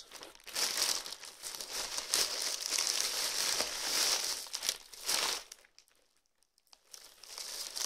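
A plastic carrier bag and clear plastic wrapping crinkling and rustling as they are handled, for about five seconds; it then stops, with faint rustling again near the end.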